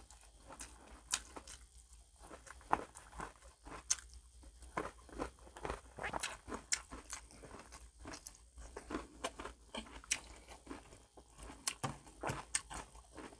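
A person biting into and chewing crispy fried food, with many sharp, irregular crunches.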